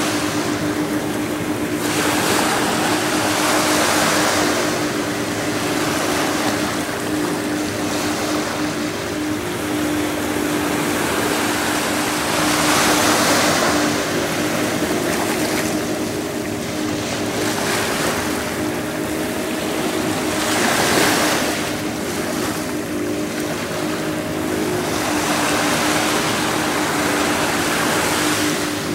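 Surf washing ashore, swelling and fading every few seconds, over a steady engine hum.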